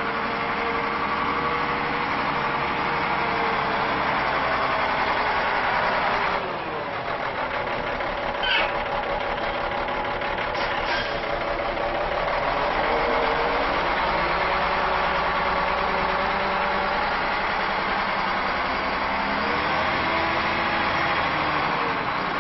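Volvo A30C articulated dump truck's diesel engine running as the truck drives and turns on gravel, its pitch rising and falling as it accelerates and eases off. The engine note drops back about six seconds in, and a brief high squeak sounds about two seconds later.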